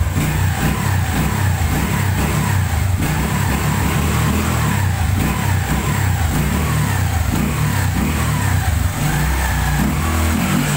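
Motorstar Idol underbone motorcycle engine running, its speed rising and falling as it is revved. It is running after its timing chain tensioner spring has been replaced and the timing adjusted.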